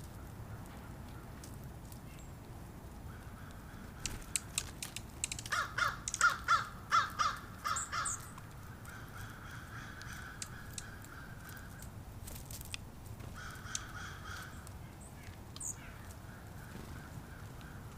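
A bird giving a quick run of about eight harsh, cawing calls, starting about five seconds in. Scattered light clicks come just before the calls, and a few brief high chirps from small birds are heard, over steady outdoor background noise.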